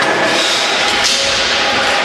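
Spectator crowd noise in a sports hall: many voices talking and calling out at once in a steady din.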